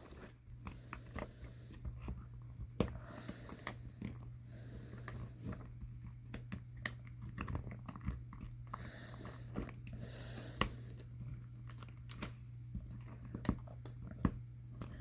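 Faint, irregular clicks, crackles and creaks of rubber and plastic gas-mask parts being handled and pressed into place while an Israeli 4A1 gas mask is reassembled.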